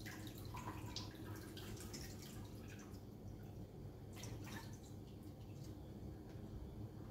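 Water splashing and dripping in a kitchen sink as fish pieces are rinsed by hand, in scattered small splashes.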